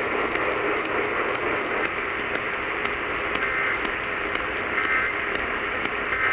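Steady radio static: an even hiss of noise from a broadcast radio receiver, with no voice coming through.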